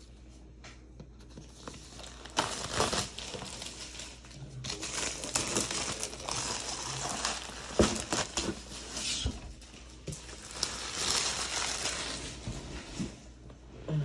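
Clear plastic shrink wrap being torn and crinkled as it is pulled off a cardboard box, in irregular bursts from about two seconds in, with one sharp knock about halfway through.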